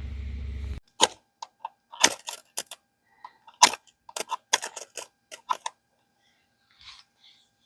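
A steady low hum that stops abruptly under a second in, followed by a quick, irregular run of about twenty sharp mechanical clicks and clacks.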